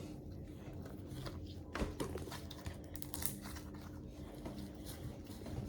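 Slime being stretched and pulled by hand, with faint scattered crackling and tearing sounds.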